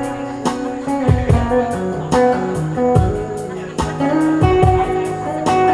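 Live band playing an instrumental reggae intro: plucked and strummed guitar notes over a steady low beat with sharp percussive ticks.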